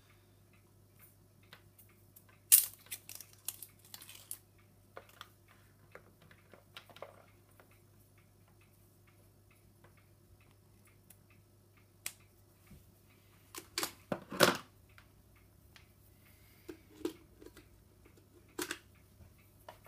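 Handling of a plastic phone charger plug and cable: scattered clicks and taps as the adapter and cord are unwrapped and plugged in, the sharpest about two seconds in and a cluster around fourteen seconds in, over a faint steady low hum.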